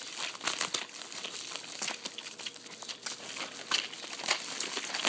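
Packing material in a shipping box being rustled and crumpled by hand as the box is unpacked, a continuous run of irregular crinkles and crackles.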